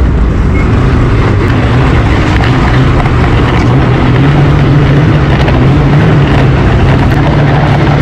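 Snowmobile engine running under throttle, its pitch climbing gradually as the sled picks up speed.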